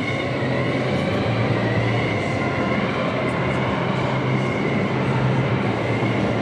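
Electric motor and propeller of a large lightweight RC Fokker Dr.I triplane model in flight: a steady whine that rises and falls slightly in pitch over a low hum.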